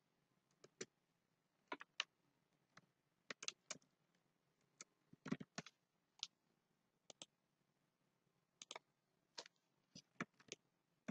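Faint, irregular clicks of a computer mouse and keyboard keys, some single and some in quick clusters, with near silence between them.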